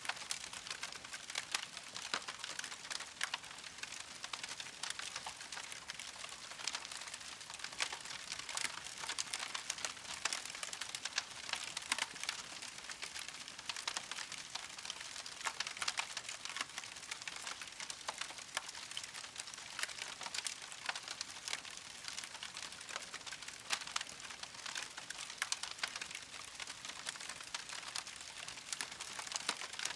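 Steak and vegetables sizzling on a small tabletop grill: a steady, dense crackle of spitting fat.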